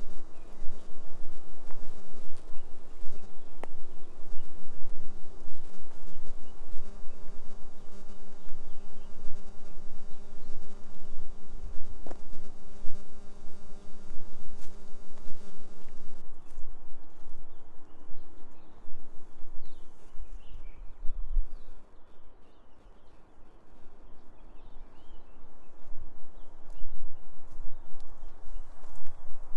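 Electrical buzz from a Rode microphone on an iPhone: a steady hum with many overtones that cuts off abruptly about sixteen seconds in. It is the microphone static that the uploader says goes on and off on its own. Underneath are footsteps on a dirt path and a fluctuating low rumble on the microphone.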